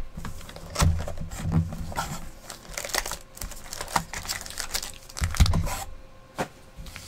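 Cardboard trading-card hobby box being unwrapped and opened by hand: crinkling wrapper and rustling cardboard and packs, with a few dull knocks as the box is handled.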